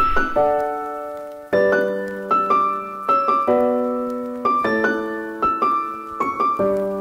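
Background piano music: chords and short runs of notes, each struck and left to ring out.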